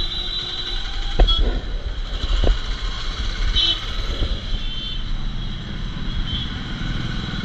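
Steady low rumble of road traffic, with a few short knocks.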